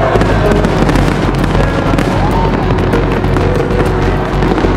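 Fireworks going off in a dense, continuous barrage of crackles and bangs over a low rumble, loud and unbroken throughout.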